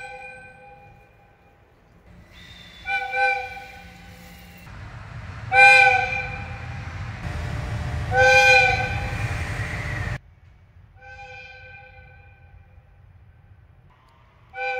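Electric locomotive air whistles sounding a series of about five short blasts, each a single steady note. A low running rumble sits under the middle blasts.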